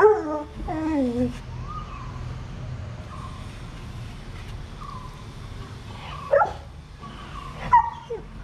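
Bully Kutta (Indian mastiff) puppy whining: a run of falling whimpers in the first second or so and fainter whines after that. Two short, sharp yips come in the last couple of seconds.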